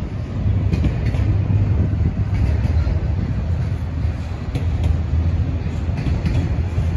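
Loaded autorack freight cars rolling past steadily: a low rumble of steel wheels on the rails, with faint clicks now and then.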